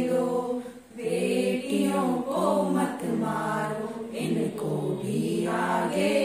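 A group of women singing a Hindi song together without instruments, holding long sung lines, with a brief breath pause about a second in.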